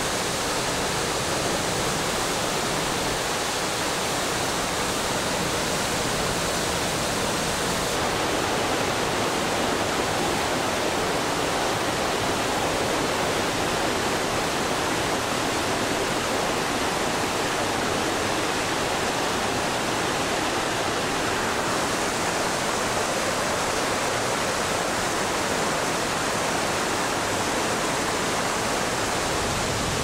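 Steady rushing roar of a mountain waterfall pouring into its pool, an even wash of water noise with no break; its tone shifts slightly about 8 seconds in and again about 22 seconds in.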